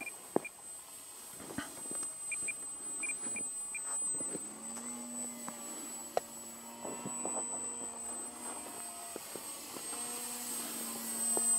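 E-flite Timber radio-controlled model plane's electric motor and propeller humming steadily in flight, the hum settling onto a steady pitch about four seconds in, with a few sharp clicks.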